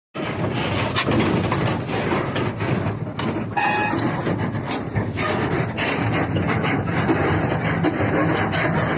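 Hyundai 210 excavator's diesel engine running steadily under repeated metal clanks and rattles, with a short beep about three and a half seconds in.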